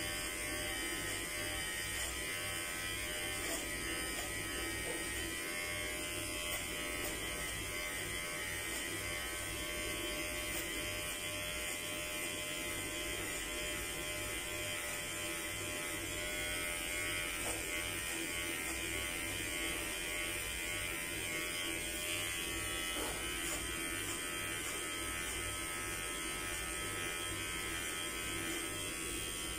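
Electric hair clippers running with a steady buzz as they cut hair at the side of the head.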